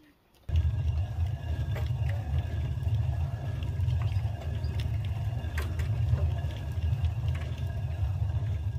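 Rotary stone hand quern being turned by its wooden handle: a steady, low grinding rumble of stone on stone with occasional faint clicks. It starts abruptly about half a second in.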